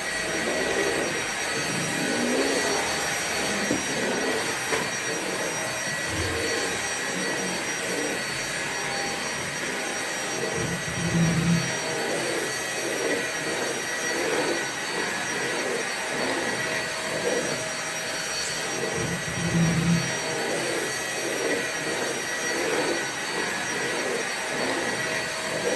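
Vacuum cleaner running steadily: an even rushing hiss with a fixed high whine over it and a lower layer that pulses gently, plus a low swell twice.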